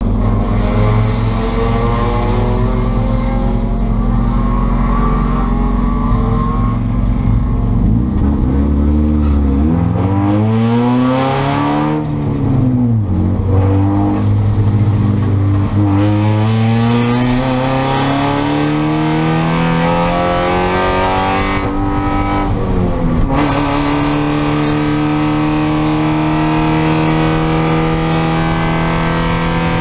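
Spec Miata's four-cylinder engine running steadily, then revving up and down, climbing in pitch as it pulls up through the gears with two quick shift dips, and holding a steady higher pitch near the end.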